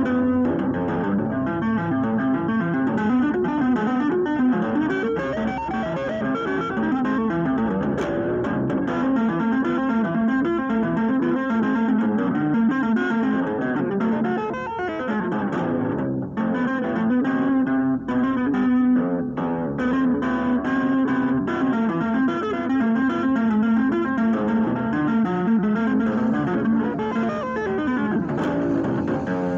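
Extended-range electric guitar played by two-handed tapping, both hands hammering notes on the fretboard in continuous fast neoclassical runs.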